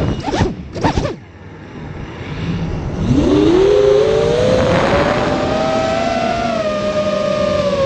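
FPV quadcopter's brushless motors whining, heard from the onboard camera: two quick blips, then the whine drops away for about two seconds. About three seconds in it rises steeply and holds high, drifting slightly and sagging near the end.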